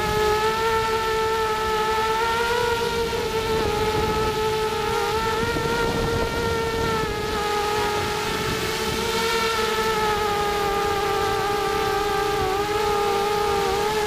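Small quadcopter's 2300kv brushless motors and propellers buzzing at a high, fairly steady pitch, heard from its onboard camera with wind rushing over it. The pitch wavers slightly and dips briefly near the end.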